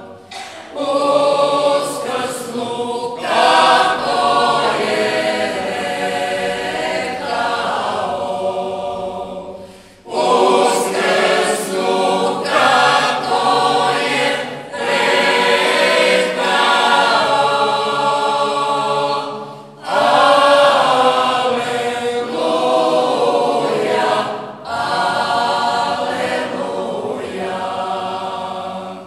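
Mixed-voice folk choir singing a traditional Marian hymn unaccompanied in several-part harmony. It sings in long phrases, each broken off briefly every five to ten seconds.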